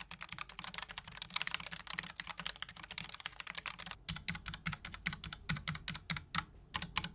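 Typing on a Logitech MX Mechanical Mini keyboard with tactile quiet (brown) switches: fast, continuous key clicks for about four seconds, then slower, separate keystrokes, each with a dull low thud.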